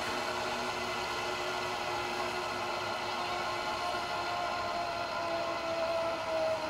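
Zip-line trolley pulleys running along a steel cable, a steady whirring hum with one tone slowly sliding lower in the second half.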